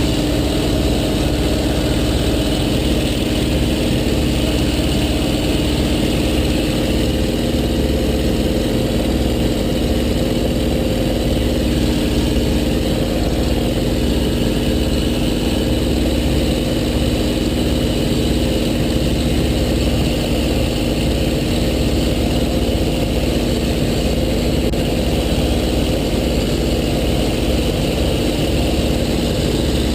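Small RC plane's electric motor and propeller running at a steady speed, a constant multi-tone hum, with wind buffeting the microphone underneath.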